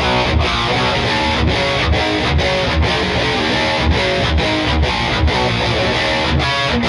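Gibson SG Standard electric guitar played with a distorted, overdriven tone: rhythmic riffing with brief regular breaks between the chords.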